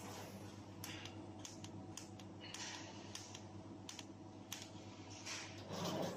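Steady electrical hum of a welding set with scattered sharp clicks as a stainless steel trolley shelf is tack-welded, and a louder rustling swell near the end.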